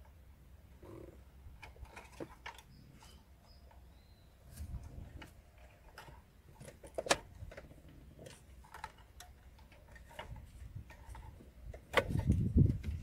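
Irregular small clicks and taps of RCA plugs and cables being handled and pushed onto a car equalizer's sockets, with a louder bumping near the end.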